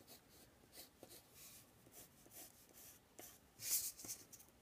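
Pencil drawing on paper: a run of short, faint scratching strokes, with one louder stroke near the end.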